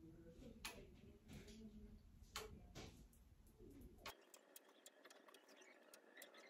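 Near silence: faint room tone with a few soft, sharp clicks in the first half and scattered tiny ticks after the low background drops out abruptly about four seconds in.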